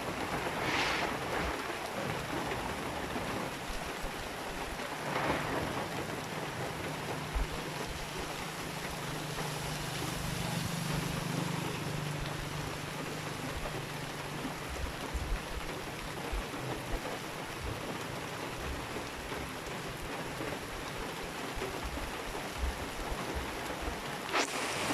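Steady heavy rain pouring down, heard from under the shingled roof of a waiting shed. A low drone comes in about five seconds in and fades out after about ten seconds.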